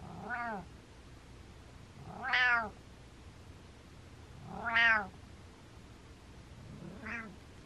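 Orange-and-white domestic cat giving four short 'mreh' meows about two seconds apart, each rising then falling in pitch, the second and third loudest: the happy, contented chirpy meows of a cat greeting its owner.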